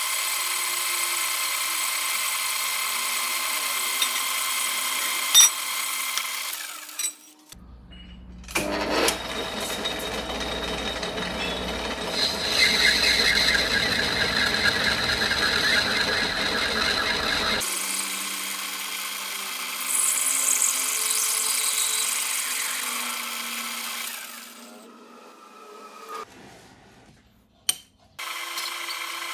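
Old metal lathe running as it machines a brass workpiece: a steady motor and gear whine, rougher and louder through the middle. About 25 seconds in it winds down and stops, then with a click it starts up again near the end.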